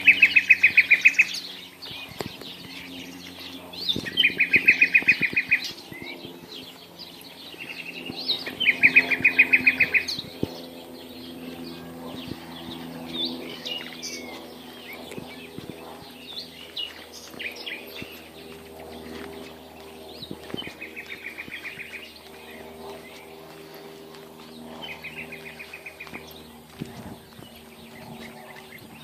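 Birdsong: one bird repeats a loud, rapid trill of about a second and a half, five times, with other short chirps and calls in between. A faint steady low hum runs underneath.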